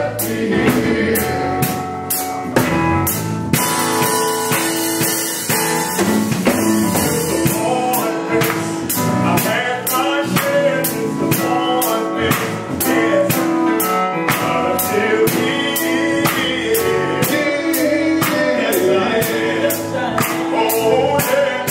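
Male gospel vocal group singing live, a lead singer on a handheld microphone with the others backing him, over a band with a steady drum beat.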